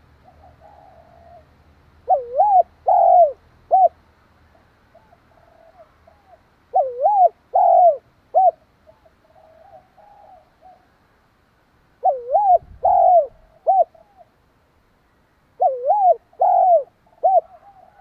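Spotted dove cooing: four loud phrases of four notes each, about every four and a half seconds, with soft cooing between them. This is the song a decoy dove gives to rouse other doves.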